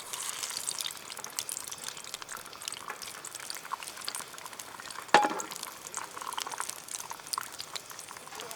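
Food sizzling and crackling in a wok as it is fried, with a single loud metal clank that rings briefly about five seconds in.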